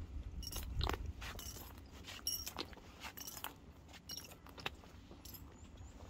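Footsteps climbing snow-covered stone steps, each step a short crisp crunch, about two a second and unevenly spaced, over a low rumble that is strongest in the first second.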